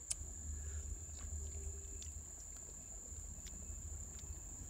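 Steady high-pitched drone of insects over a low rumble, with scattered faint ticks and pops from a pot of chowder simmering.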